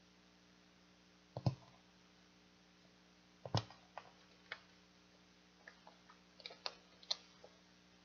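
Faint, scattered sharp clicks and taps as hands snap a metal binder clip onto a stack of folded cardstock signatures and handle the pages. The two sharpest clicks come about one and a half and three and a half seconds in, followed by a run of smaller ticks near the end.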